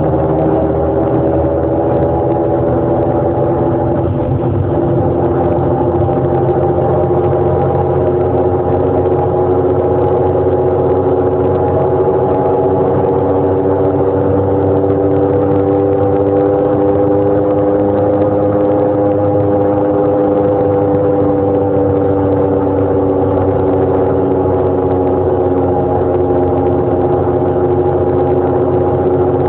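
Saturn car driving with a steady droning hum made of several tones that drift slowly in pitch, rising a little and falling back around the middle. The owner suspects a worn wheel bearing or axle.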